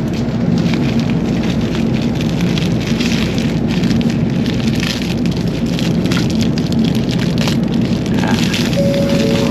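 Steady rushing cabin noise of a Shinkansen bullet train running, with a low hum underneath and a faint pair of steady tones near the end.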